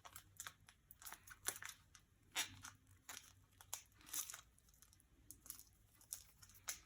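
Faint, intermittent rustling and small clicks of hands sorting through craft parts and their crinkly packaging.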